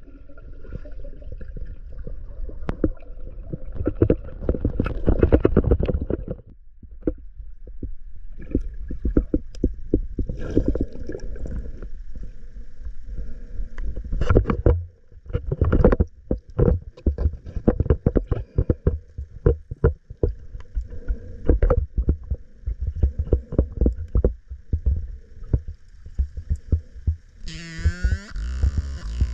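Water sloshing and splashing close around an action camera as a swimmer moves through a spring, with irregular muffled knocks and bumps. About two seconds before the end a steady hum comes in.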